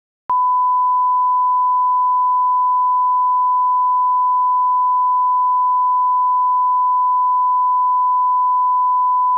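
A steady, unchanging 1 kHz reference test tone, the line-up tone that goes with colour bars. It starts abruptly a moment in, after silence.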